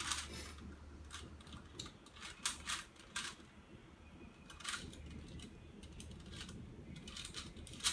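Plastic puzzle cube being turned by hand: scattered, irregular clicks of its layers snapping into place, over a low steady hum.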